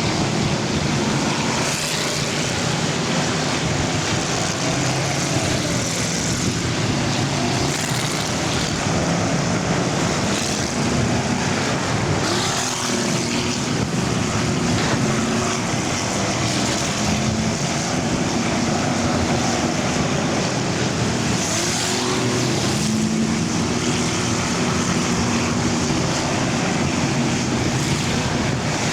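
Engines of many full-size cars racing together around a track, a steady loud mix of engine notes that rise and fall as cars pass.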